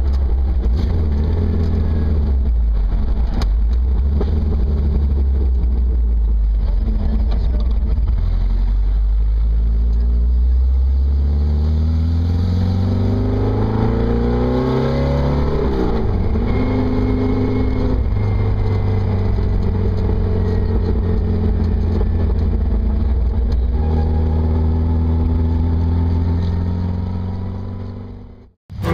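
Air-cooled 2.0-litre Porsche 914 flat-four on dual Weber carburettors, heard from onboard a VW Ritter buggy while driving. It runs steadily, climbs in revs for a few seconds, drops back sharply at a gear change and cruises on. A thin whine from the short straight-cut gearbox rides over it, and the sound fades out at the very end.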